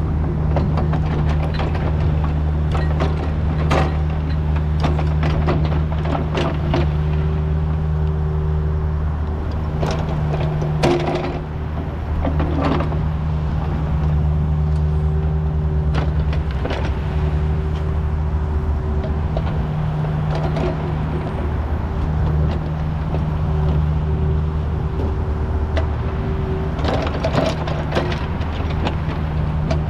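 Kubota U55 mini excavator's diesel engine running steadily, with scattered knocks and clanks from the machine at work, clustered about ten seconds in and again near the end.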